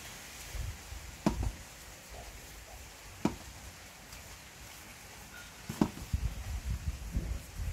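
Hands shaping small pieces of tapioca dough on a wooden cutting board: three sharp taps about two seconds apart, then a run of soft low thumps near the end as the dough is pressed against the board.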